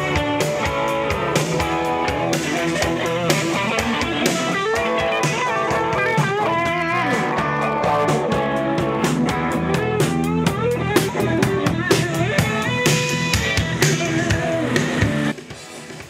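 Live rock band playing: electric guitars, bass guitar and drum kit, with a lead guitar holding wavering, bent notes. The band stops suddenly about a second before the end.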